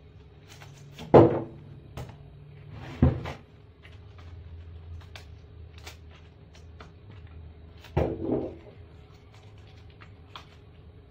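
A kitchen knife cutting romaine lettuce, with the leaves handled over a plastic bowl of water at a stainless-steel sink. There are many light clicks and a few loud knocks: about a second in, about three seconds in, and a double knock at around eight seconds. A low steady hum runs underneath.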